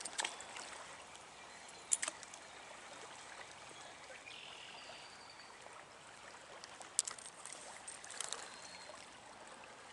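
Trout stream flowing, a steady wash of running water, with a few brief sharp clicks or small splashes scattered through it.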